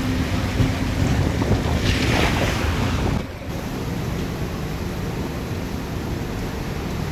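Heavy rainstorm: a steady rush of rain and running water, with wind buffeting the microphone. The hiss swells about two seconds in and eases a little after three seconds.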